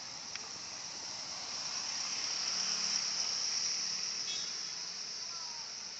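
Swiftlet call sound: a dense, high-pitched chirring chorus of swiftlet twitters, as played to lure swiftlets into a nesting house. It swells louder about halfway through, with a few short chirps over it.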